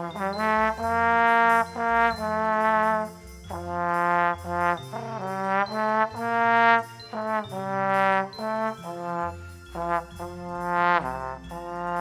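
Slide trombone playing a solo melody of sustained notes with short breaks between phrases and a couple of slides in pitch, over a lower sustained accompaniment.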